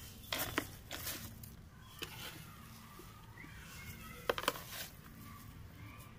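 A hand spreading and patting crumbly soil over vegetable peels in a plastic pot to cover the kitchen waste: faint rustling and crumbling, with scattered light clicks and a quick cluster of them about four seconds in.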